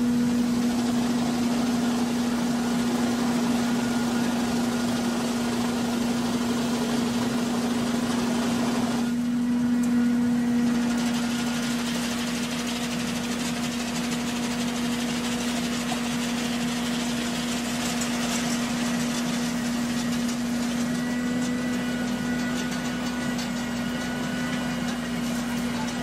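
Tractor-driven plum harvester running steadily: a continuous engine and machinery drone with a strong, even hum, its sound shifting slightly about nine seconds in.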